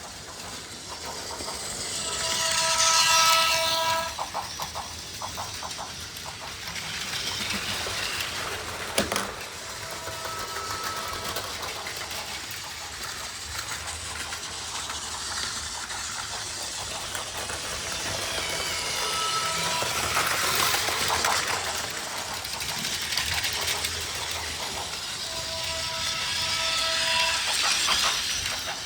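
Battery-powered Plarail toy trains whirring and clattering along plastic track, with a toy railroad crossing chiming its steady warning tone four times, about two seconds each, as trains pass. A single sharp click about nine seconds in.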